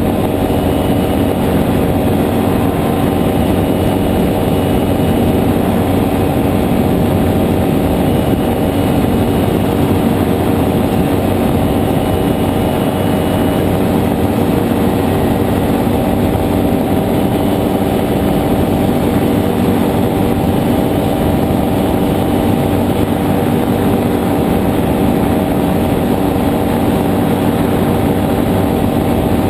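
Nano trike's JPX 320 engine and pusher propeller running at steady cruising power in flight, with a constant drone and no change in revs, mixed with rushing air.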